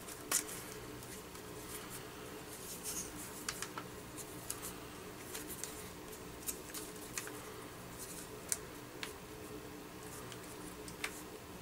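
Scattered sharp clicks and light knocks from the plastic housing of a Milwaukee M18 Fuel impact driver as it is handled and worked apart by hand, the sharpest click near the start. A steady low hum runs underneath.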